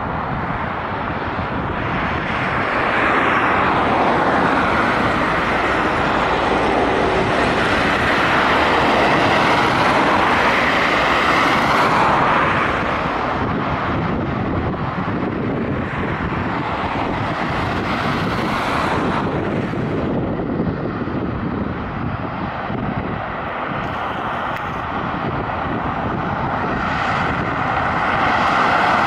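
Road traffic: cars and a minibus driving past, their tyre and engine noise swelling and fading. A steady whine comes in near the end.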